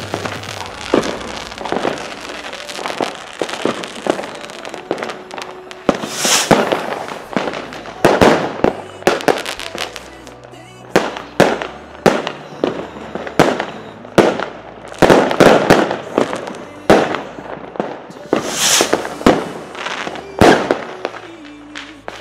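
Fireworks going off in a dense, irregular run of sharp bangs, with two brief hissing bursts, one about six seconds in and one near the end, over background music.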